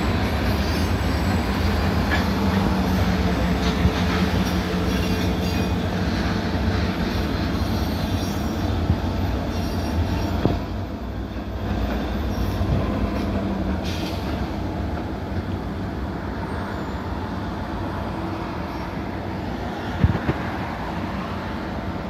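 Freight train passing on the rails: a continuous low rumble with wheel squeal and rail clatter, mixed with the running of an EMD GP-series ("Geep") diesel switching locomotive. The rumble eases about halfway through, and there is a single sharp knock near the end.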